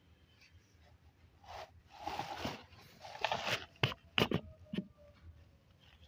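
Thin plastic carrier bag rustling and crinkling in irregular bursts as it is handled around a plastic food container, with a few sharp plastic clicks about four seconds in.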